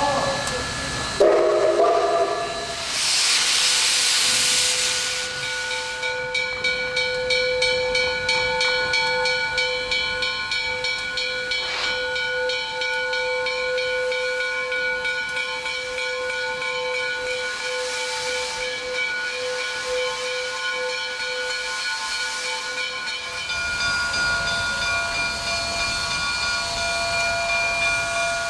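Steam locomotive standing under steam: a loud burst of hissing steam a few seconds in, then steady ringing tones over a quick, regular ticking. Near the end the tones change and a low rumble joins them.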